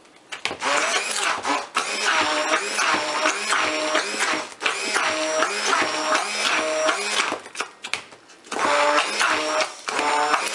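Electric stick blender running in a beaker of black-coloured cold process soap batter, its motor pitch wavering as it mixes. It stops for about a second about three-quarters of the way through, then starts again.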